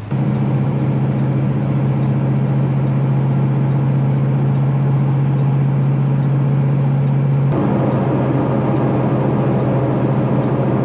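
Semi-truck diesel engine running with a steady, loud drone. About seven and a half seconds in there is a sharp click and the sound turns rougher.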